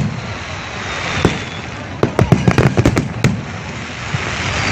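Aerial fireworks display: several sharp bangs of shells bursting, clustered between about one and three and a half seconds in, over a steady hiss.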